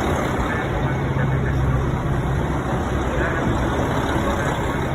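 Steady low hum and rumble of a train standing at a station platform, with faint voices in the background.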